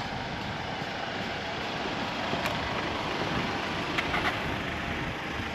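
Steady rumble of a car on the move, with tyre and engine noise.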